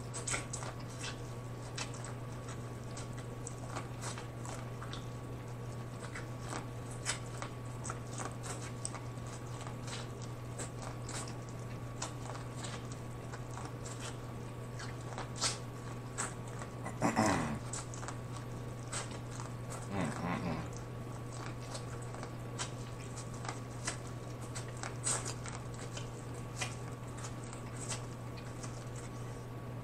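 Close-miked eating of corn on the cob: many short wet clicks and smacks of biting and chewing kernels off the cob, over a steady low hum. Two short murmured vocal sounds come about two-thirds of the way through.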